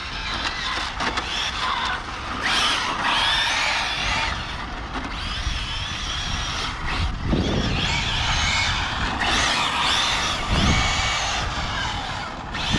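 Arrma Felony 6S brushless RC car running hard on tarmac: several high-pitched motor whines rising and falling as it accelerates and passes, with tyre noise.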